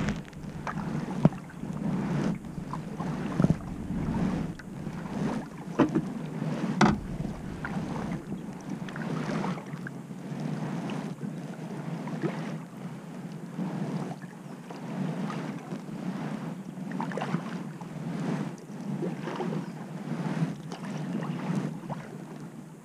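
Kayak paddle strokes: the blades dip and splash into calm water, alternating sides about once a second.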